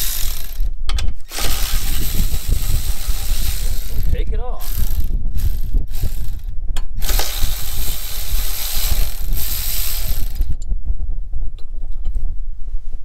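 Compressed-air tool running in several bursts of a few seconds each, with short pauses between, then stopping near the end.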